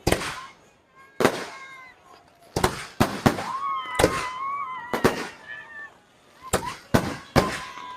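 Fireworks exploding overhead, about a dozen sharp bangs at uneven intervals, each with a short echoing tail. Between the bangs, people in the crowd shout and cheer.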